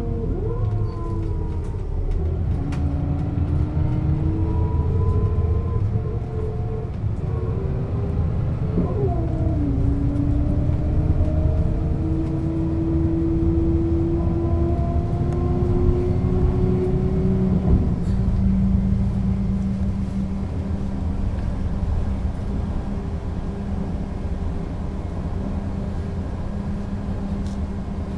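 Setra S 315 UL bus engine and ZF gearbox pulling away: a whine climbs in pitch, drops at a gear change about a second in and again about nine seconds in, keeps climbing, then settles to a steady hum for the last third as the bus holds its speed.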